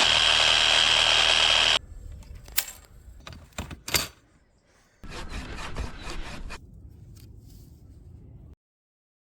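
A power saw running steadily and cutting off abruptly about two seconds in, followed by a few sharp clicks of pruning work and a short stretch of rasping cutting, then silence near the end.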